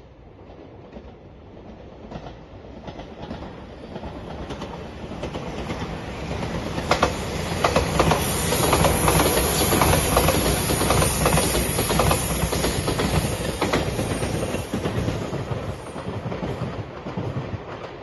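A five-car Shiokaze limited express electric train passing: its rumble builds over several seconds and is loudest about halfway, with the clickety-clack of wheels over rail joints, then it fades near the end.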